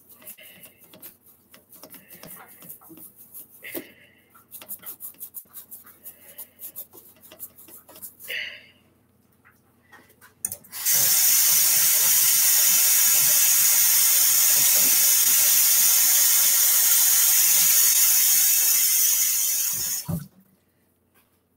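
Toothbrush scrubbing a vinyl reborn doll head in quick strokes, working off its painted hair. Then a kitchen tap runs loudly and steadily for about nine seconds into a stainless steel sink as the head is rinsed, shutting off abruptly near the end.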